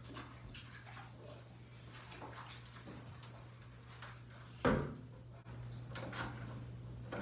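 Faint knocks and clatter of things being handled at a bathtub's edge, with one louder thump a little past halfway, over a steady low hum.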